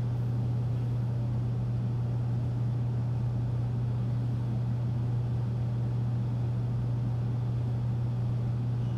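A steady low-pitched hum with an even hiss over it, unchanging throughout.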